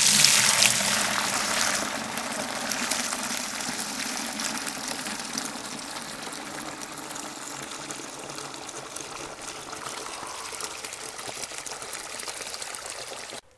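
Degreaser-and-water flush draining from a tractor's hydraulic tank through a hose and pouring into a metal bucket. It gushes hardest in the first couple of seconds, settles into a steady pour, and stops suddenly near the end.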